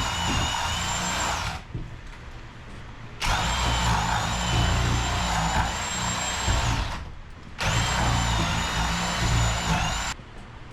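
Power drill boring into wood in three runs of a few seconds each: a steady high motor whine over a rough cutting rumble, stopping sharply between runs.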